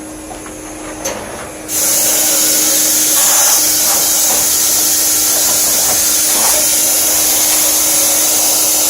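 A duct-cleaning vacuum runs steadily with a low hum. About two seconds in, a loud, high, steady rush of air starts suddenly and keeps going: air being blown through a supply duct run to clean it.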